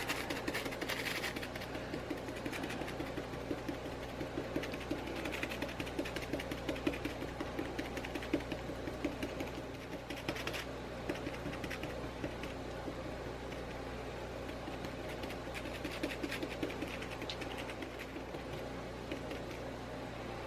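Rapid, irregular tapping and scratching of chalk paint being dabbed and brushed onto a toy bird cage, over a steady low hum.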